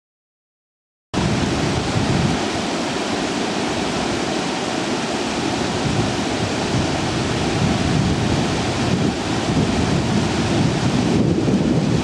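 Silent for about the first second, then a loud, steady rushing noise with gusty low rumbling: wind buffeting the camera microphone outdoors.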